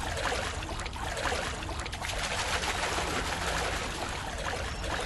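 Water splashing and dripping in a shallow pond as a small hand-made lift net is moved through it: a steady patter of small drips and splashes.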